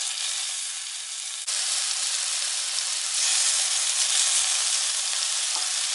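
Jerk-marinated chicken thigh strips sizzling on a hot raclette grill plate. The sizzle gets suddenly louder about a second and a half in and swells again about halfway through.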